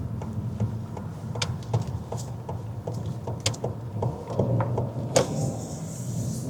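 Steady low hum of a car cabin on the move, with light clicks and rattles throughout and a brief louder hiss about five seconds in.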